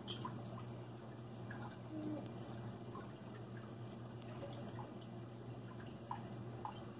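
Reef aquarium water running: scattered drips and small trickles over a steady low hum.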